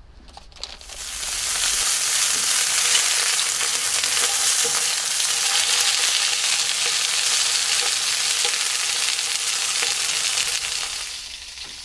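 Pork sausages sizzling as they brown in a hot frying pan, a steady loud hiss that builds about a second in and fades near the end.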